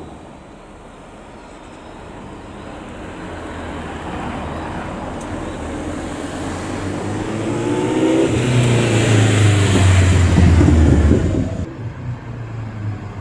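Motor vehicle accelerating hard, its engine and road or wind noise building steadily, with the engine's pitch bending up and then down near its loudest. The sound drops off suddenly near the end.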